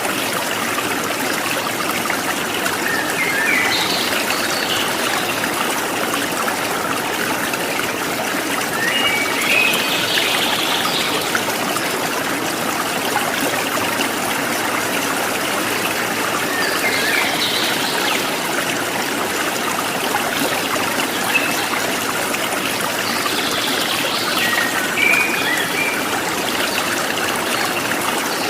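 Stream of water running and trickling steadily, with short bird chirps breaking in every few seconds.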